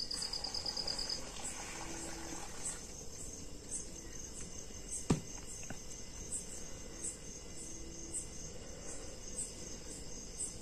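Faint, regular high-pitched insect chirping, repeating about one and a half times a second, with a single sharp click about five seconds in.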